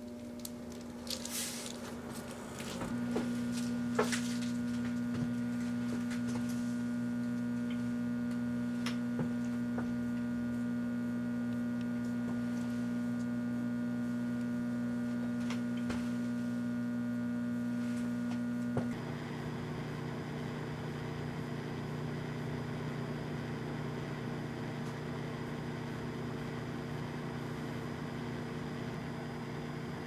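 Microwave oven running with a jack-o'-lantern inside: a steady electrical hum from the oven, with a few sharp crackles in the first few seconds. The hum changes abruptly about two-thirds of the way through, settling into a slightly lower, lower-pitched drone.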